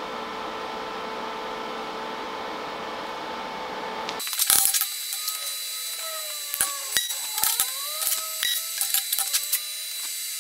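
A steady workshop hum, then from about four seconds in, steel bracket pieces being set down and positioned on a steel welding table: a loud clatter, then a run of light clinks and taps with short scraping squeals of metal sliding on metal.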